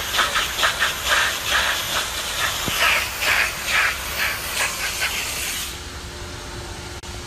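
Pressure washer jet hissing as it blasts across a wet concrete floor and a plastic scoop, the spray pulsing about twice a second. About three-quarters of the way through it turns quieter and a steady hum comes in.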